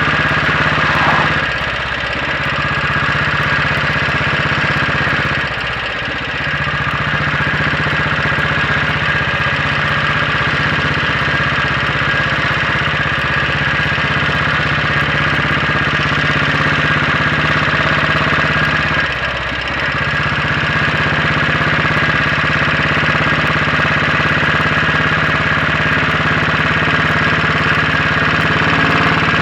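Royal Enfield Bullet 500's single-cylinder four-stroke engine running steadily under way on a test ride, its inlet cam retarded by one tooth. The engine eases off briefly three times, at about 2, 6 and 19 seconds in.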